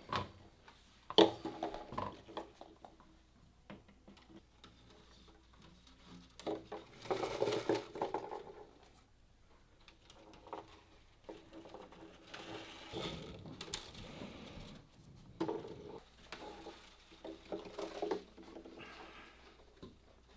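Intermittent knocks and clatter of hand work in a workshop, with a few clusters of short ringing tones.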